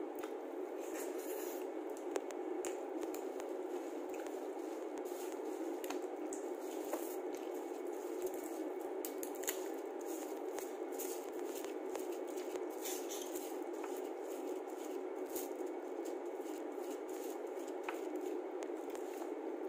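Hand-eating of cooked crab: the shell and legs are pulled and cracked apart, giving scattered sharp clicks and crackles, along with wet squishing and chewing. A steady background hiss runs underneath.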